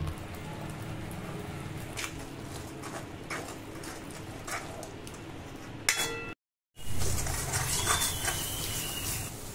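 Steel ladle stirring and scraping thick masala paste in a metal kadai, with a few sharp clinks of the ladle against the pan. The sound cuts out briefly about two-thirds of the way through.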